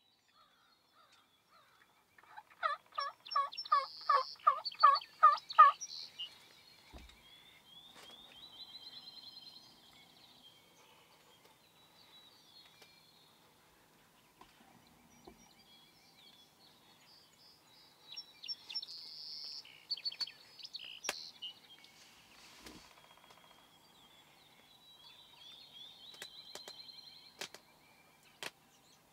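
Wild turkey calling: a run of about ten loud, evenly spaced yelps, then fainter, higher calls and a second, quieter run of yelps. A few sharp clicks come near the end.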